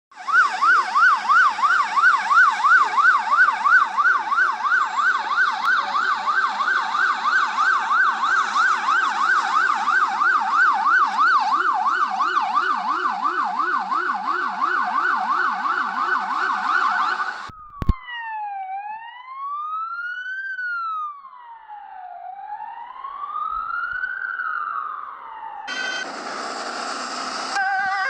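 Ambulance sirens. First a Polish ambulance siren sweeps rapidly up and down, about three times a second, for about seventeen seconds. It cuts to a slow wail that rises and falls every few seconds. Near the end another ambulance siren begins with traffic noise.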